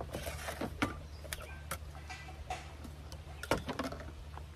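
Scattered clicks and light knocks of a rice cooker being handled as its hinged lid is opened and the inside reached into. Under them runs a steady low machinery hum.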